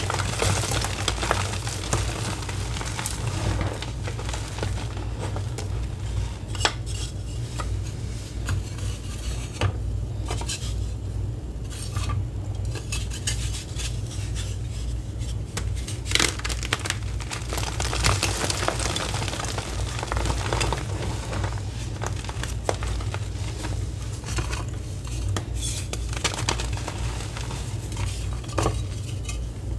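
Thin blocks of reformed gym chalk crunching and snapping as they are crushed in the hands, a steady stream of dry crackles with sharp snaps, over a steady low hum.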